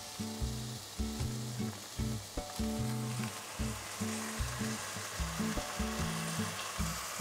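Vegetables sizzling in a hot frying pan as seafood soup is squeezed in from its pouch, with background music playing a simple melody.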